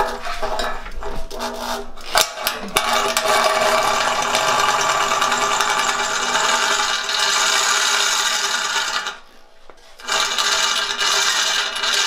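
Electric drill with a 1¼-inch hole saw cutting into a metal bumper support: the motor runs under load while the saw teeth rasp through the metal. The cutting stops briefly about nine seconds in, then starts again.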